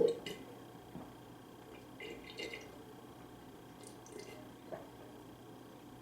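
Soft eating and drinking sounds: a dull knock at the start, then a few short, wet smacks and clicks at intervals.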